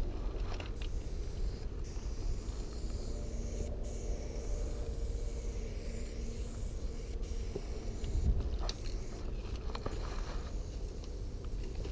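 Aerosol spray paint can hissing in long strokes with short breaks between them, as a black outline is painted.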